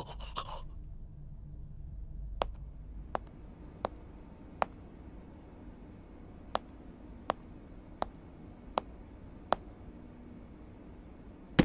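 Footsteps: sharp, evenly spaced steps a little under a second apart, four and then, after a pause of about two seconds, five more, over a low steady hum.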